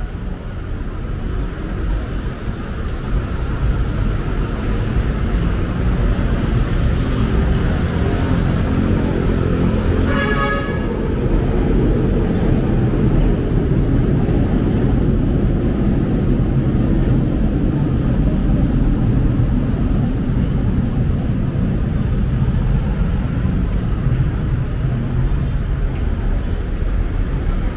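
Busy street traffic with vehicle engines running close by, and a short horn toot about ten seconds in.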